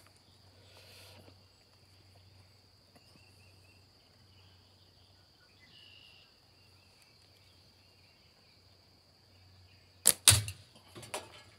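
A slingshot's flat bands snap on release about ten seconds in, followed a split second later by the steel ball striking a soda can in a catch box.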